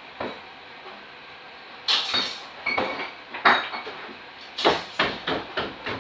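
Irregular knocks and clatters, like a cupboard or household objects being handled. A single small click comes first, then after about two seconds the knocks come more and more often.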